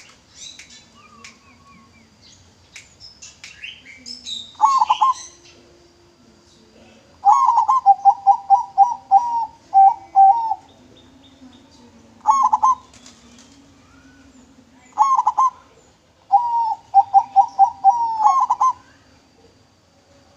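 Zebra dove (perkutut) singing: short phrases of a few coos, and twice a longer run of about ten quick staccato coo notes. Smaller birds chirp more faintly in the first few seconds.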